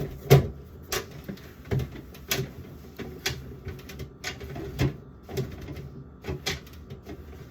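Food containers and packages being set down on refrigerator shelves and in a drawer: a string of irregular knocks and clatters, the loudest just after the start.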